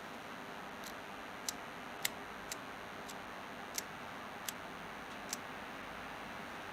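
Small, sharp clicks and ticks from a Pentacon auto 50mm f/1.8 M42 lens being handled in gloved hands. There are about eight of them, unevenly spaced, over a steady hiss.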